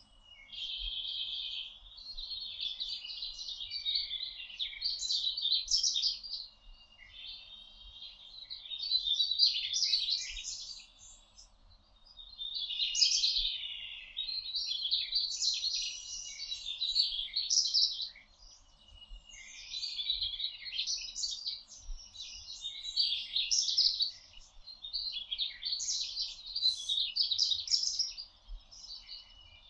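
Several songbirds singing in a forest chorus, overlapping songs coming in bouts of a second or three with short pauses between.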